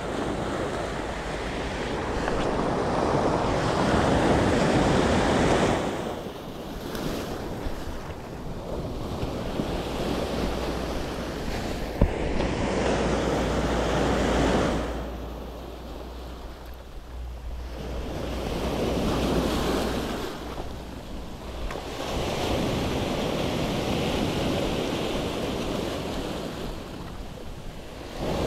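Sea waves breaking and washing over a stony cobble beach, the surf swelling and easing every several seconds, with wind rumbling on the microphone. One sharp click about twelve seconds in.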